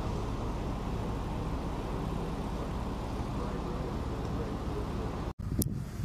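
A steady low engine drone, with faint voices behind it. It cuts off abruptly a little over five seconds in, followed by a short click.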